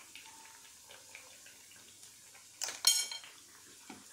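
Metal kitchen utensils clinking while cooking. There are light taps throughout, and one loud metallic clink about three seconds in rings on briefly.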